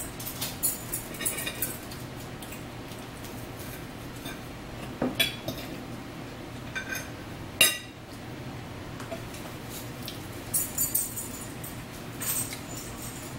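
Forks clinking and scraping against dinner plates in short, scattered clusters, the loudest clink about seven and a half seconds in.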